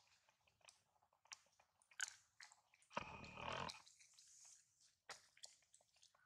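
Faint wet clicks and smacks of a baby macaque suckling at its mother's nipple, with a short, louder noise about three seconds in.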